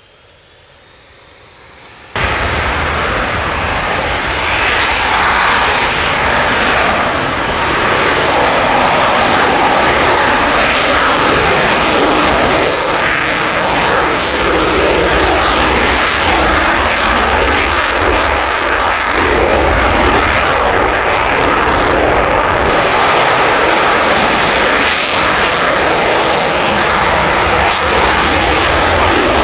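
Loud jet noise of an F-35B Lightning II's single engine, faint and rising at first, then jumping suddenly to full loudness about two seconds in and holding steady.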